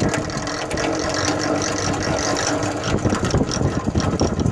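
Centrifugal honey extractor running, its bevel gears turning steadily as the frame basket spins inside the steel drum.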